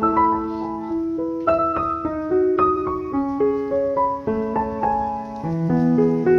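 Background piano music, notes and chords struck one after another in a flowing melody.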